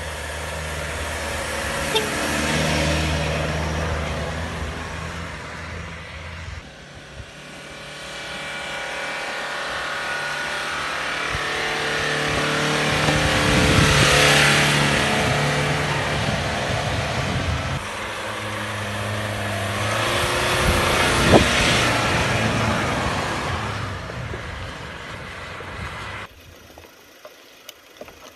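Off-road 4x4 pickup trucks driving up a deep-snow track one after another, engines revving hard as each climbs past close by, rising to a loud peak and fading away. About 26 seconds in the engine sound gives way to a much quieter scene.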